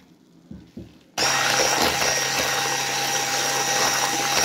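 Electric hand mixer with twin wire beaters switched on about a second in and running steadily at one speed, beating flour into crepe batter in a stainless steel bowl.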